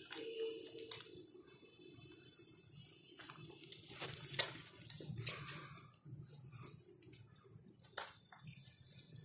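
Puppies nursing from their mother: small wet suckling and smacking sounds with scattered sharp clicks, the loudest about four seconds in and near the end.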